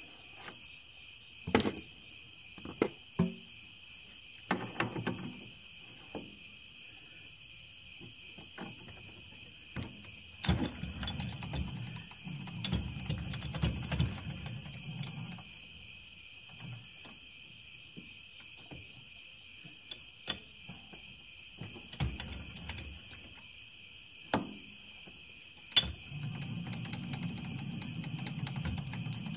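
Stopped metal lathe being set up by hand: scattered metallic clicks and knocks as the carriage and tool post are moved toward the brass workpiece in the chuck, with two stretches of low rumbling, one around the middle and one near the end, as the carriage is run along the bed. A faint steady high whine sits underneath.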